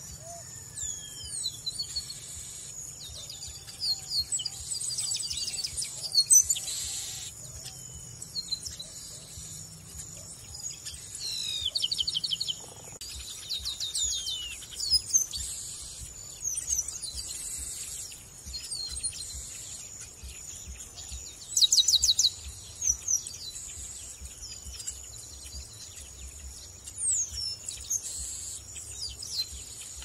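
Chestnut-capped blackbirds singing and calling: short slurred whistles overlapping with rapid, rattling trills, the loudest trill bouts coming in bursts every few seconds. A steady thin high tone sits underneath throughout.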